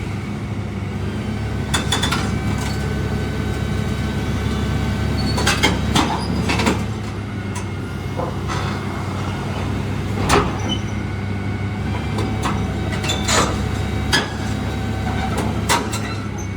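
Heavy diesel engine running steadily at low revs, with a handful of sharp metallic clanks and knocks scattered over it.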